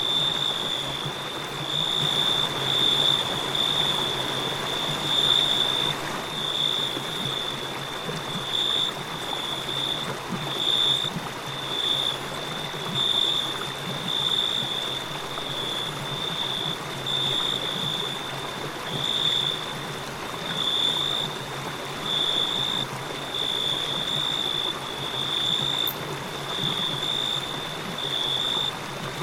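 Crickets trilling steadily at one high pitch, swelling and fading about once a second, over the even rush of flowing river water.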